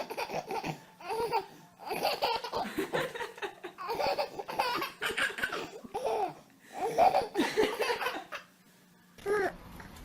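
A baby laughing in repeated bouts of belly laughter, stopping near the end.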